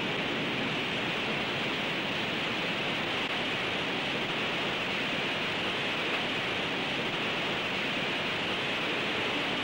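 Steady, even hiss like the background noise of an old recording, unchanging throughout, with no distinct splashes, voices or other events.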